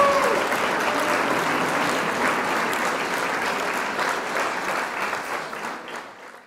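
Applause from a crowd of many people clapping, fading out near the end.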